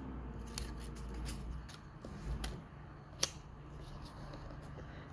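Light handling sounds of paper strips being pressed onto a glued clothespin: soft rustles and small clicks, with one sharper click about three seconds in.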